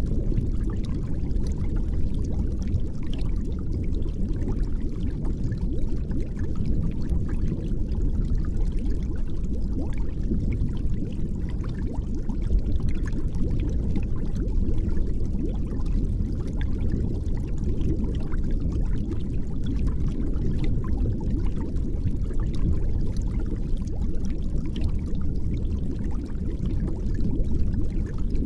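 Steady, muffled rush of running water, deep and unchanging, with faint crackling ticks above it.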